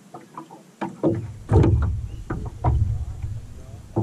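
Lake water slapping and knocking against the hull of a small fishing boat in choppy water: irregular slaps over a low rumble, starting about a second in.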